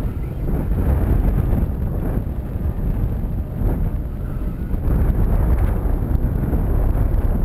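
Wind buffeting the microphone of a camera on an open boat: a heavy, steady low rumble that swells and eases slightly.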